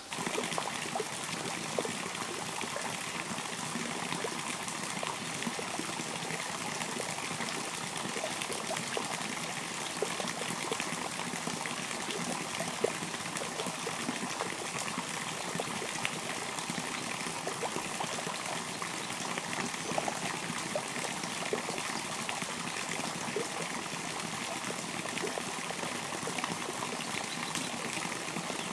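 River water running and trickling steadily, with many small drips and splashes.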